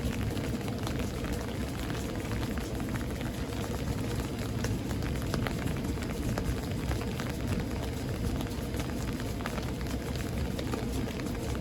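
Steady rain falling in a thunderstorm, a constant wash with many individual drops ticking sharply on hard surfaces near the microphone.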